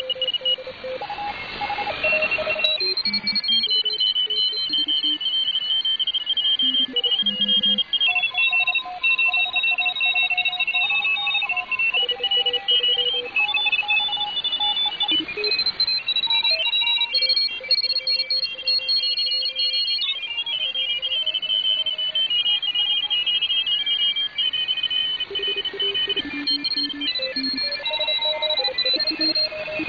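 Shortwave receiver audio from a WebSDR tuned to 1830 kHz in the 160-metre amateur band: many overlapping beeping tones at different pitches keying on and off, typical of several Morse code stations heard at once, over a faint static hiss. A brief burst of static comes about a second or two in.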